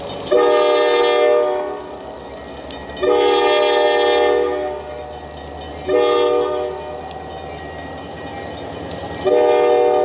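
Diesel locomotive's multi-chime air horn sounding the standard grade-crossing warning: two long blasts, one short blast, then a final long blast beginning near the end, which signals the train is entering the crossing. The diesel engine rumbles low underneath.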